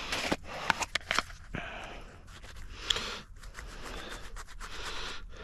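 Light scrapes and clicks of fingers handling a freshly dug, dirt-covered coin, with close breathing and sniffing.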